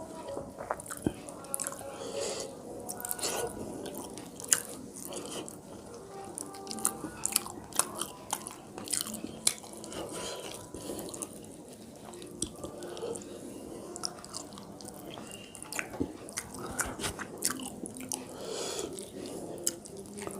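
Close-up eating sounds: a mouth chewing and biting through a meal of rice and fish, with wet smacks, crunches and sharp clicks scattered irregularly throughout.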